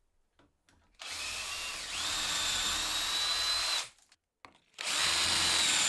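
Cordless drill boring dowel holes into the end of a wooden board through a self-centering doweling jig, its bit set with a depth stop. It starts about a second in, its whine steps up in pitch, and it stops just before four seconds. About a second later it starts again and runs on.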